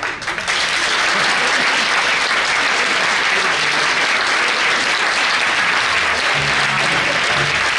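Audience applauding steadily, beginning as the recorded tango music stops at the very start.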